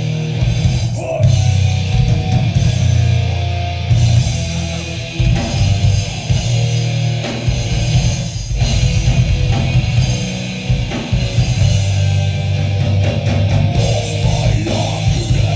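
Live rock band playing: electric guitar, bass guitar and drum kit with a heavy, continuous low end, heard from within the crowd.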